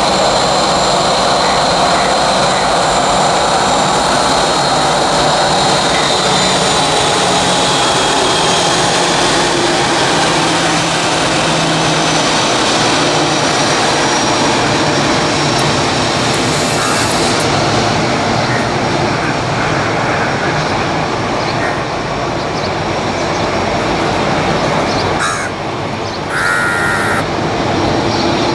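Airbus A320 jet engines running at taxi power: a steady rushing noise with a high whine, as the airliner taxis. Crows caw over it.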